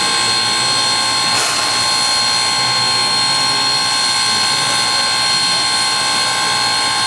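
Steam venting from the 1913 0-4-0 steam locomotive #30: a loud, steady hiss with a few high ringing tones in it, and a brief surge about a second and a half in.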